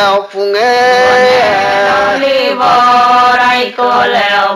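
Ponung chant, a traditional Adi sung recitation: a voice holds long notes that slide up and down between pitches, with a steady low drone under it.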